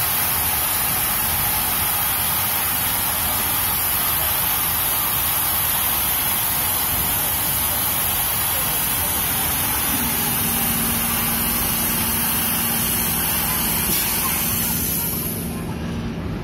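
Kiddie drop-tower ride lowering its seat ring with a loud, steady hiss. The hiss cuts off about fifteen seconds in as the seats settle at the base, and a low hum is left.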